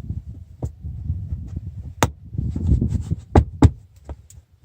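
Molded WeatherTech floor liner being pushed into place in a truck footwell: low rumbling handling noise with about five sharp clicks, two of them close together past the middle, as its push-button retention clips snap onto the floor anchors.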